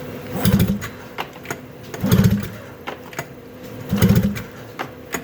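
Arctic Cat ZL440 two-stroke twin cranked by hand with its recoil pull-starter three times, about two seconds apart, during a compression test. Each hard pull gives a short burst of rapid pulses as the engine turns over against compression.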